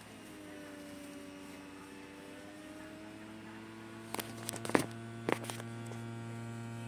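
Small air pump in the pneumatic rehabilitation glove's control unit running with a steady hum, its pitch creeping up slightly as it pressurises the finger actuators. A few sharp clicks and knocks come between about four and five and a half seconds in as the unit is handled.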